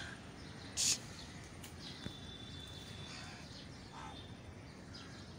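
Birds chirping in scattered short calls, with one held high note in the middle, over a steady background of distant city noise. A brief sharp burst of hiss about a second in is the loudest sound.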